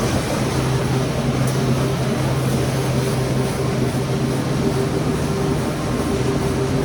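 Corrugated-box flexo printer slotter die-cutter folder-gluer line running steadily: a constant mechanical din with a low hum and a steady higher tone, and a faint tick about a second and a half in.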